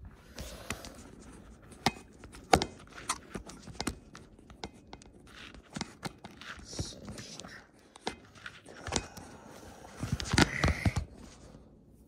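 Handling and opening a mail package: scattered clicks, scrapes and rustles of the packaging, busier and louder about ten seconds in.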